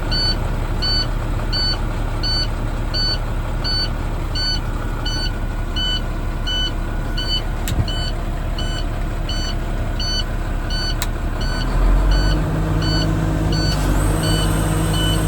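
International Durastar's MaxxForce 9.3 L diesel idling, under a cab warning chime beeping steadily about twice a second. Near the end the engine's low note steps up and grows stronger.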